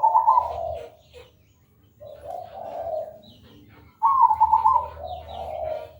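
Zebra dove (perkutut) cooing. Three loud phrases come about two seconds apart, the first carried over from just before the start. Each one opens with a quick stuttering run of higher notes and drops into a lower rolling coo.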